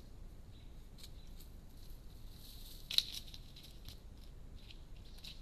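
Faint outdoor ambience at a shallow rocky creek: scattered small clicks and high chirps over a low steady hum, with one sharper click about three seconds in.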